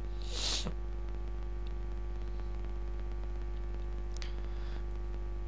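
Steady electrical mains hum with a buzz of evenly spaced overtones, at a constant level. A short hiss of noise comes about half a second in, and a faint click comes around four seconds.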